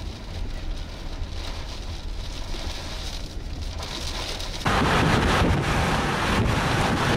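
Rain beating on a moving car's windshield, heard inside the cabin over a low road rumble. About four and a half seconds in it cuts abruptly to much louder wind from the tornado buffeting the microphone outdoors.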